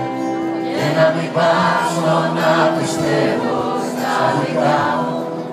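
Live concert music over a stage sound system, recorded from within the audience: held chords with singing that comes in about a second in.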